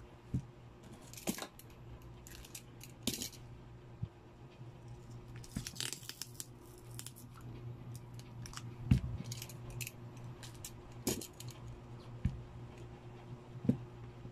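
Scattered light knocks, taps and short scrapes of a smartphone being handled and pressed down on a silicone repair mat, the sharpest knock about nine seconds in, over a steady low hum.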